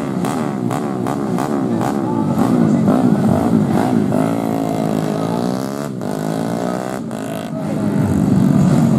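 Several four-stroke underbone race motorcycles running hard past the track, their engine notes rising and falling as they accelerate, shift gears and go by. One bike's note dips and then climbs again near the middle.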